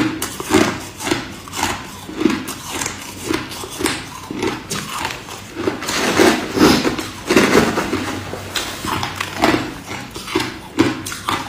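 Crushed ice being chewed, a steady run of crunches at about two a second. Around the middle a metal spoon digs and scrapes through the crushed ice in a plastic bowl.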